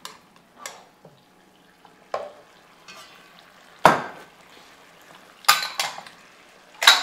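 Kitchen work sounds: a few sharp knocks of a cleaver chopping spring onions on a cutting board, the loudest about four seconds in, with light clinks of a spoon and faint sizzling from the wok.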